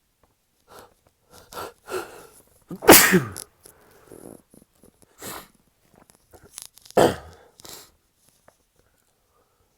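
A man in an allergic sneezing fit: a few short catching breaths, then a loud sneeze about three seconds in whose pitch falls away, a smaller one near five seconds, and another loud sneeze about seven seconds in.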